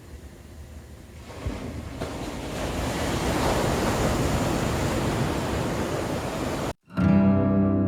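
A steady rushing noise that swells about a second and a half in. It cuts off abruptly near the end, and strummed acoustic guitar music starts straight after.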